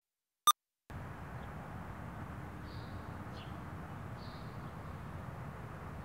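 A single short beep from a film countdown leader, in otherwise dead silence. About a second in, a steady hiss of outdoor ambience begins, with a few faint bird chirps.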